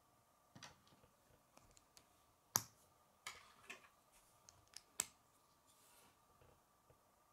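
Plastic K'nex connectors and rods clicking and snapping together as they are handled and fitted: scattered sharp clicks, the loudest about two and a half seconds in and another near five seconds.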